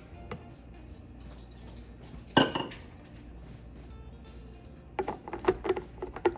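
Background music, with one sharp knock about two and a half seconds in and a quick run of clinks and taps near the end as containers are handled.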